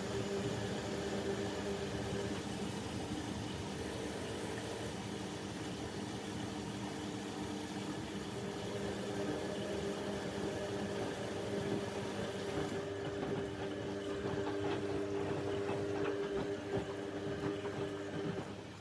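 Bauknecht WA Aquaton 1400 front-loading washing machine running early in a 60 °C cottons cycle: a steady mechanical hum over a hiss. The high hiss drops away about two-thirds of the way through while the hum carries on.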